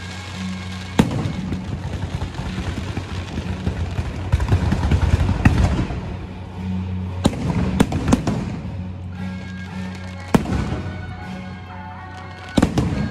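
Aerial fireworks going off: sharp bangs of bursting shells about a second in, a cluster in the middle and again near the end, with dense crackling from many small reports in between. Music with a steady bass plays underneath.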